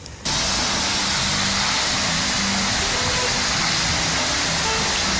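Fountain jets splashing into a shallow pool: a steady, loud hiss of falling water that starts suddenly about a quarter second in.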